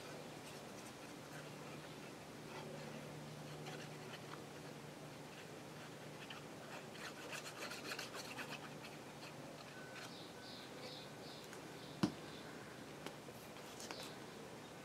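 Faint rubbing and rustling of paper being handled at a craft table, with a single sharp click about twelve seconds in.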